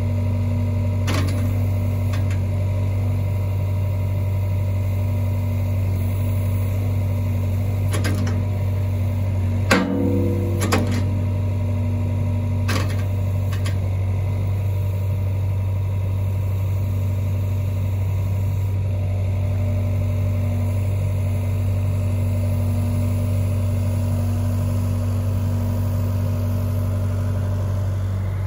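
2020 John Deere 85G excavator's diesel engine running steadily, with a few sharp metallic clanks from the machine, the loudest about ten seconds in.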